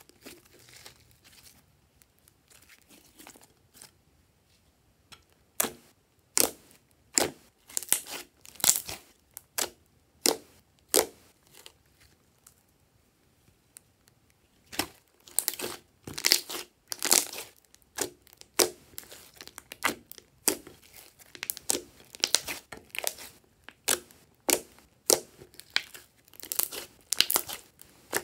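Thick slime being stretched, lifted and pressed by hand in a glass dish, giving sharp sticky pops and crackles. The pops begin about five seconds in and come thick and fast from about fifteen seconds in.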